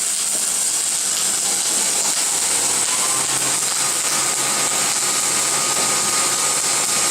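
Welding arc from gas-shielded flux-core (dual-shield) wire on a Thermal Arc Fabricator 252i, a steady sizzling crackle as a test bead is run on scrap metal. A low hum joins about two and a half seconds in.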